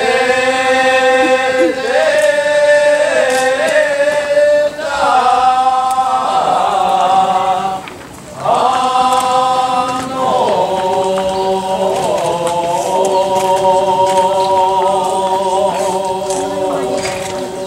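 A group of voices chanting together in long, drawn-out held notes that waver in pitch, with a short break about eight seconds in.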